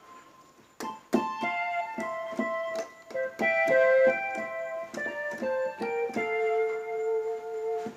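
Korg Pa300 arranger keyboard playing a melody in a piano-like voice sampled from a Yamaha PSR-550, over evenly spaced accompaniment strokes. It starts about a second in and ends on one long held note.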